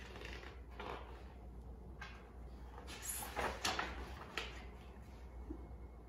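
Pages of a hardcover picture book being handled and turned: a series of soft papery swishes and rustles, the loudest cluster about three seconds in.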